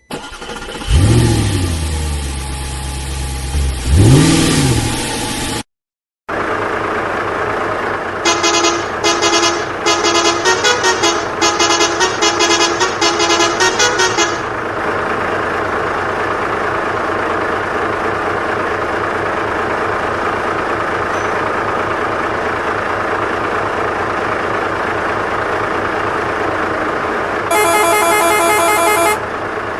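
Dubbed-in truck engine sound effect: it revs up and down twice, cuts out for a moment about six seconds in, then runs steadily. A rapid run of horn toots sounds from about eight to fourteen seconds in, and another horn blast sounds near the end.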